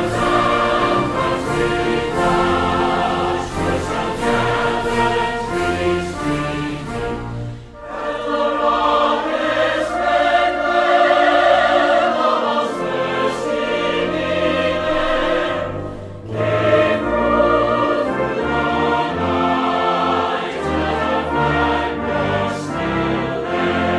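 Music: a choir singing with orchestral accompaniment, in long phrases with short breaks about 8 and 16 seconds in.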